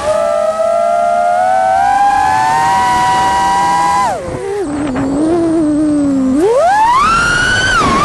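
Brushless motors of an Amax F5P 6S FPV freestyle quadcopter whining, the pitch climbing gradually under throttle. About four seconds in the pitch drops sharply as the throttle is chopped, then rises steeply again as it is punched back up near the end.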